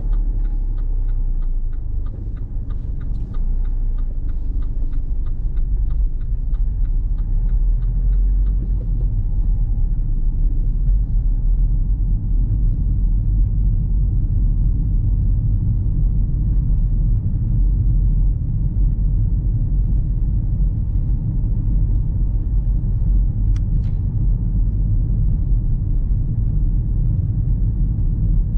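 Car driving at steady speed: continuous low road and engine rumble. A regular light ticking runs through roughly the first nine seconds, and there is one sharp click about 24 seconds in.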